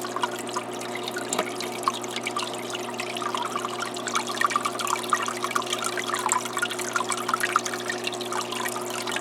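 Aquarium waterfall running, water splashing and trickling steadily off two stones set together in the flow, with many small droplet splashes and a steady low hum underneath.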